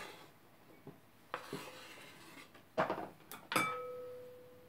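Kitchen handling sounds: a knife scrapes minced onion off a wooden cutting board, utensils clatter as they are set down, then a dish is knocked with a sharp clink that rings on at one pitch for over a second.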